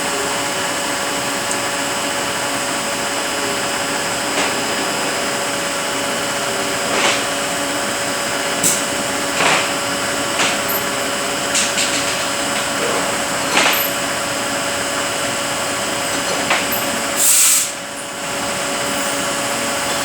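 Rebuilt Eaton Fuller FRO-16210C ten-speed truck transmission running on a test dyno: a steady mechanical whir with a constant gear tone, broken by scattered short clicks and hisses. About 17 seconds in comes a short, louder hiss.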